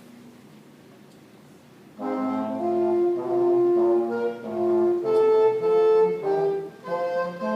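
A middle-school wind band comes in about two seconds in, playing sustained, brass-heavy chords in slow held phrases with short breaks between them.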